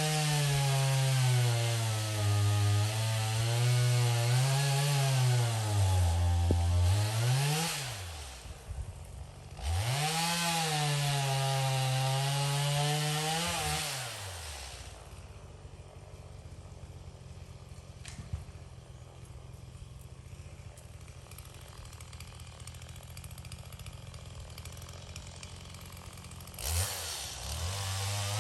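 Two-stroke chainsaw running at high revs, its engine pitch sagging and recovering as it works. It stops for a moment, revs again, then is much quieter for about twelve seconds before revving up once more near the end.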